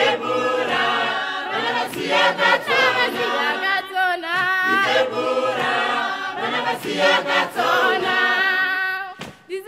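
Choir singing, with a brief break about nine seconds in.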